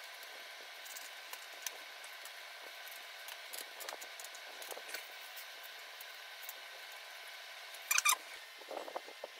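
Faint clicks and taps of gloved hands fitting a TV power board and its plastic cable connectors, over a steady hiss, with a brief burst of sharp clicks near the end.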